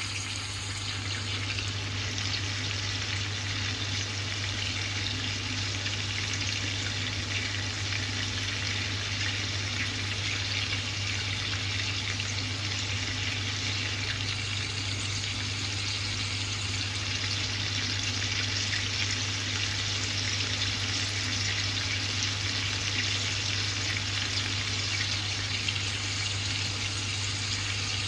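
Marinated chicken pieces frying in bubbling oil in a cast-iron skillet: a steady, even sizzle and crackle, over a constant low hum.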